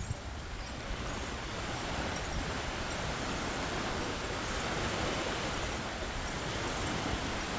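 Surf washing onto a beach: a steady rushing wash of waves that swells and eases slightly.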